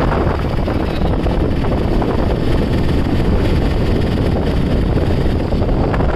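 Wind rushing over the microphone together with the engine and road noise of an open auto-rickshaw riding at speed: a steady, loud, deep rumble.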